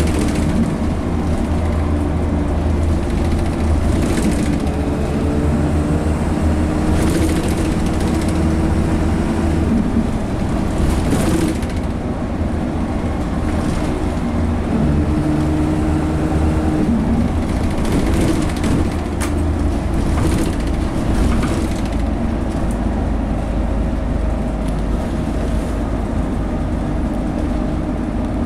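Dennis Dart single-deck bus heard from inside the saloon while under way: its diesel engine running under load through an Allison AT545 four-speed automatic, with a deep rumble and an engine note that shifts pitch several times. Panels and fittings rattle and knock now and then over the road.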